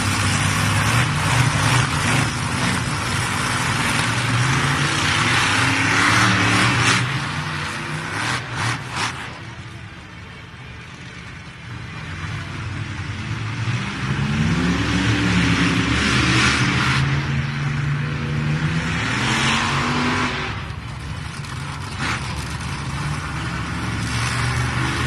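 Monster truck engines revving hard, their pitch rising and falling, in two long loud spells with a quieter lull about ten to thirteen seconds in.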